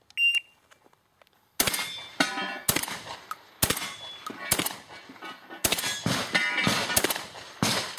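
A shot timer gives a short, high start beep. After about a second and a half, a shotgun fires a rapid string of about ten shots, spaced roughly half a second to a second apart, each with a ringing tail.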